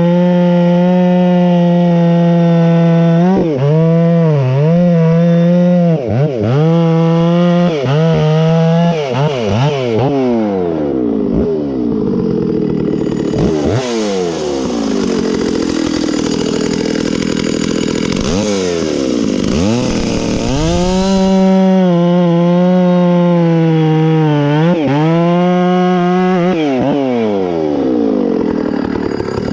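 Stihl 066 Magnum two-stroke chainsaw, its top end freshly rebuilt, running at full throttle while cutting wood. The pitch repeatedly dips and recovers as the chain loads in the cut, with a longer stretch of lower, rougher running in the middle, and the revs fall away near the end.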